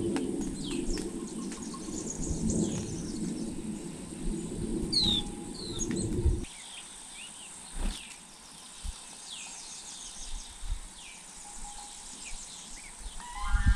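Small birds chirping and whistling, one clear falling whistle about five seconds in, over a steady high insect buzz. A low rumbling noise fills the first half and cuts off suddenly about six and a half seconds in.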